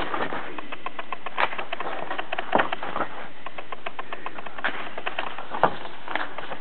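Paper handling: a new soft-cover book being opened and its pages turned, giving many small crackles and ticks over a steady background hiss.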